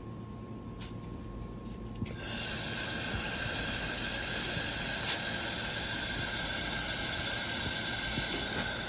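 3000 W laser welding machine welding 3 mm 304 stainless steel: a loud, steady hiss starts suddenly about two seconds in, carries a few faint steady whistling tones, and fades away near the end.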